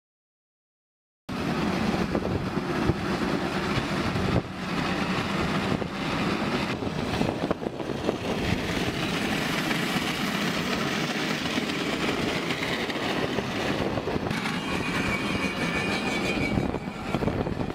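Metal scraping and grinding along the road surface under a moving car, a continuous harsh rasp with scattered knocks, starting about a second in.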